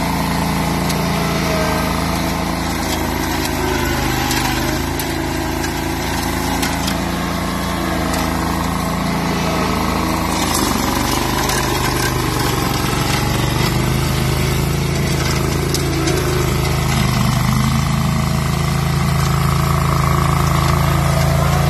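AS-Motor AS 830 Enduro 14 hp ride-on brush mower's engine running steadily while the machine mulches into dense shrubs. The engine note shifts about ten seconds in and grows a little louder near the end.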